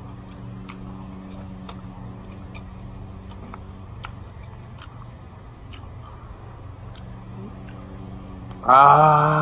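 Faint clicks of utensils against a noodle bowl while eating, over a steady low hum. Near the end a man lets out a loud, drawn-out vocal sound reacting to the heat of the spicy noodles.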